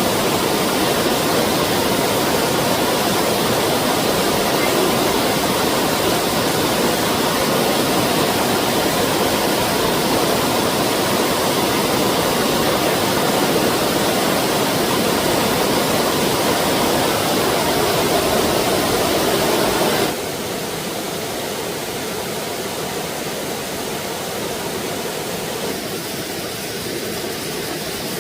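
Steady rush of flowing stream water. It drops suddenly to a quieter rush about two-thirds of the way through.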